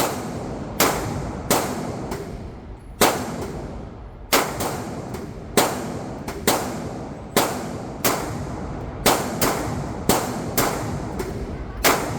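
A string of gunshots at a firing range, around eighteen sharp reports at uneven spacing of about one to two a second, some coming in quick pairs, each with a brief echo.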